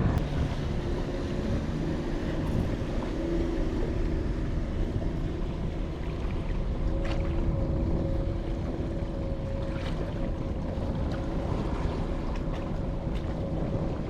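Wind rumbling on the microphone over choppy lake water, with a faint steady hum underneath.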